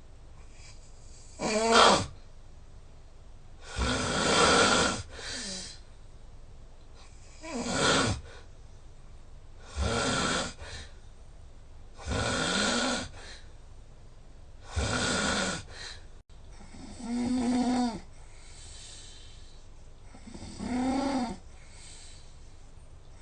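A sleeping person snoring loudly and steadily, eight snores about every two to four seconds, each lasting around a second. The later snores take on a more tonal, pitched drone.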